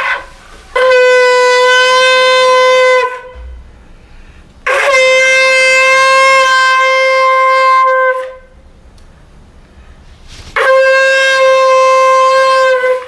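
Conch shell (shankh) blown in three long, steady blasts of about two to three and a half seconds each, the middle one the longest, with short pauses between.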